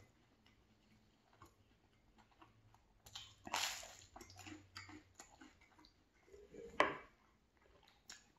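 Biting into and chewing crisp buttered toast: a loud crunch a little after three seconds in, soft chewing clicks, and a second sharp crunch about seven seconds in.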